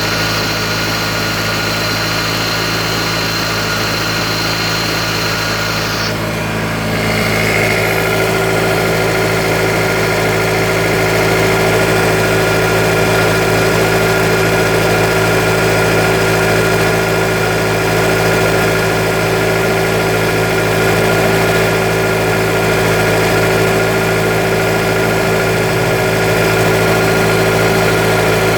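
Honda F20B inline-four engine running steadily at idle. About seven seconds in its sound shifts and grows slightly louder, then holds steady again.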